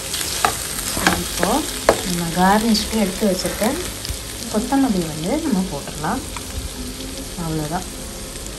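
A wooden spatula stirs and scrapes pieces of mutton sukka around a nonstick kadai, and the meat sizzles in the oil. The spatula dragging on the pan gives squeaks that rise and fall with each back-and-forth stroke, among short scrapes and clicks.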